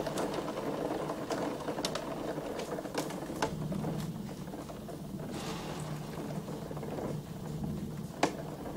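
Storm rain with hail pattering against the window glass and sill: a dense, rapid ticking with sharper single strikes now and then, the loudest one near the end.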